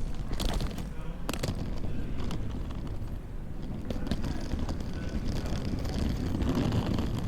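Quiet airport terminal ambience at Schiphol Airport: a steady low rumble of the hall with faint indistinct voices. A few sharp knocks sound about half a second and a second and a half in.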